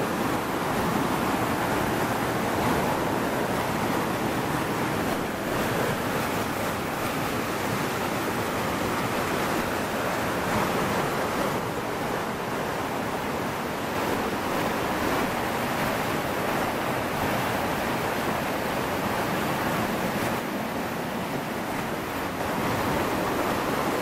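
Small rocky waterfall rushing steadily, its churning water close at hand.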